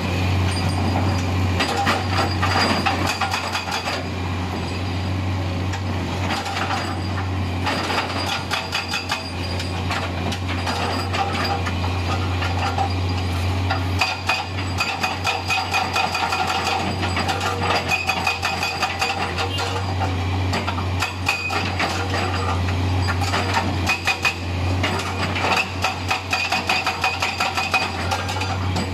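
Hydraulic rock breaker on a Komatsu PC200 excavator hammering rock with rapid blows, in spells broken by short pauses, over the steady drone of the excavator's diesel engine.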